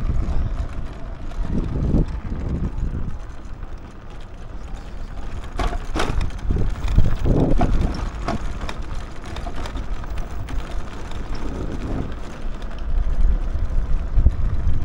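A small motorbike riding along a bumpy dirt road, with steady wind rumble on the microphone and a few sharp knocks about six seconds in.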